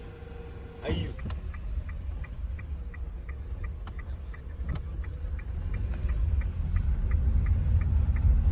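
A car's turn-signal indicator ticking evenly inside the cabin, about three ticks a second, over the low rumble of the engine and road that grows steadily louder. A single thump comes about a second in.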